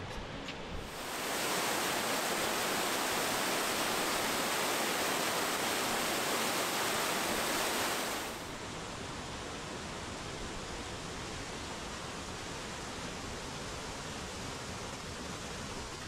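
Mountain waterfall rushing steadily, white water pouring down a rocky ravine. About a second in the rush comes up loud and hissy, and about eight seconds in it drops suddenly to a quieter, duller rush.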